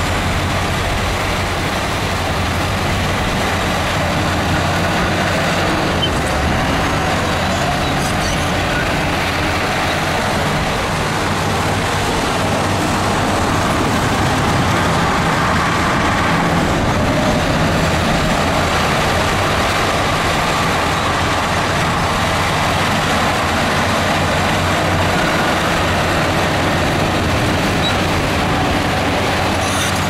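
Heavy diesel engine of earthmoving machinery running steadily, a deep engine hum under a broad mechanical din.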